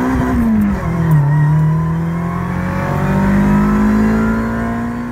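Honda Civic's D16Y8 four-cylinder engine at full throttle, heard from inside the car: revs near the top of a gear, drop with an upshift about a second in, then climb steadily again through the next gear.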